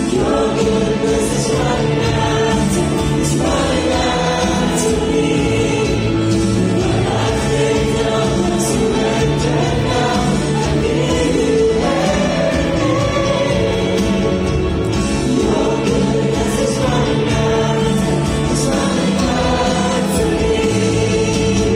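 Live worship music: a choir and congregation singing a Christian worship song over a band accompaniment.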